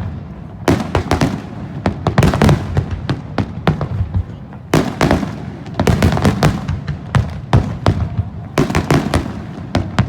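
Aerial fireworks bursting in rapid succession: many sharp bangs and crackles overlapping, with deep booms underneath.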